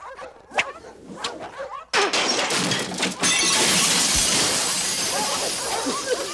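Cartoon sound effects: a couple of sharp whip cracks, then about two seconds in glass shatters loudly and a steady rushing hiss follows as smoke billows out.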